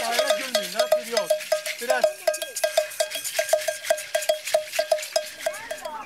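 A hand-played percussion instrument struck or shaken in a steady, even beat of short ringing clinks, about four a second. Children laugh and talk over it in the first two seconds.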